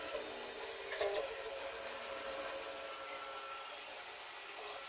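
Automated pillar drill machine running, with the whine of its stepper motors coming and going as the axes move between holes, and a brief louder sound about a second in.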